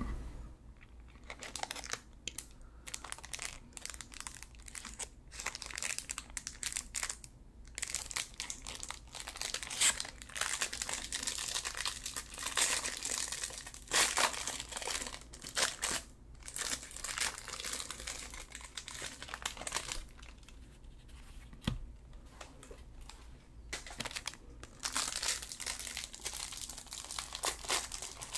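Plastic wrapper of a Freddi Dark Dolcetto mini cake crinkling on and off as it is handled and opened, with a quieter stretch about two-thirds of the way through.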